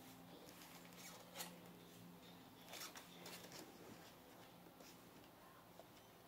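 Near silence: room tone with a faint low steady hum and a few soft rustles and clicks of handling, the clearest about a second and a half in.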